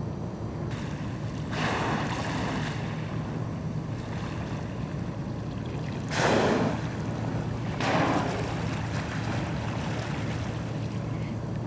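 Killer whales surfacing close by and blowing: three short breathy exhalations about two, six and eight seconds in, the one around six seconds the loudest, over a steady low rumble of wind on the microphone.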